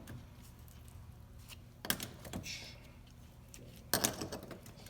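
A few light metal clinks and knocks, in two pairs about two seconds apart, as the steel plates and friction discs of a Trac-Lok limited-slip differential clutch pack are handled and stacked, over a steady low hum.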